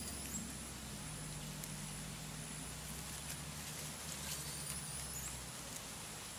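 Forest ambience: a few faint clicks and rustles of leaves and twigs as red colobus monkeys move and feed in the undergrowth. Under them is a steady high-pitched whine and a low hum that stops about five and a half seconds in.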